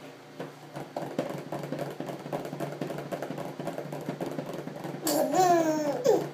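Light knocks of a hand on a plastic high-chair tray, then about five seconds in a baby bursts into loud belly laughter, in repeated bursts.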